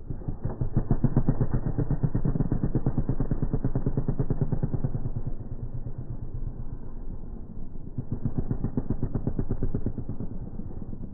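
Dirt bike engine slowed down with the slow-motion playback, so it sounds deep and low with a rapid pulsing beat. It is loudest in the first half, dips about halfway, and swells again around eight seconds in.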